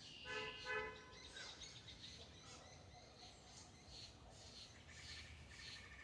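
Birds chirping faintly and repeatedly. About half a second in there are two short honk-like pitched calls, and another pitched call near the end.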